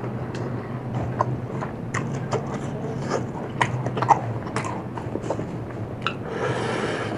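A person eating close to the microphone: chewing, with many short crisp crunches and clicks, over a steady low hum. A brief rush of noise comes near the end.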